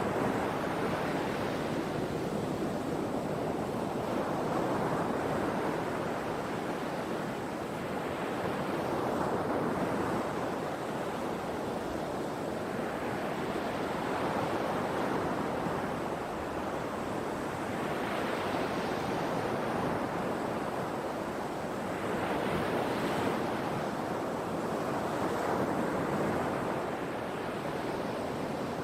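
Sea waves breaking and washing up the shore, each swell rising and falling every four or five seconds.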